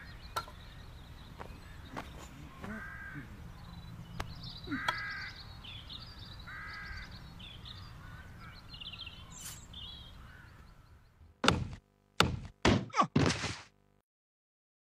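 A bird cawing three times, about two seconds apart, with fainter high-pitched chirps, then near the end a quick run of five loud thumps before the sound cuts off.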